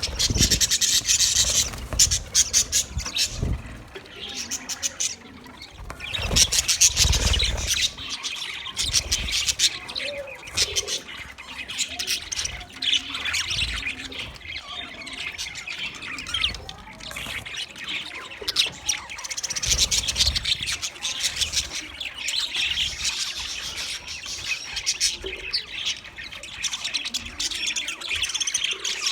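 Green budgerigars chattering and chirping in rapid bursts, with a few louder spells of fast warbling chatter and some low bumps underneath.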